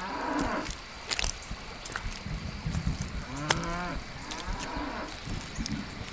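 Cattle mooing: a short call at the start and a longer, bending call about two to four seconds in, over a steady hiss with scattered sharp ticks.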